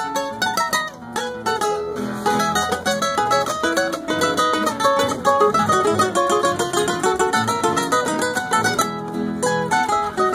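Several acoustic guitars playing a gato cuyano together, a quick run of plucked melody notes over strummed and picked accompaniment.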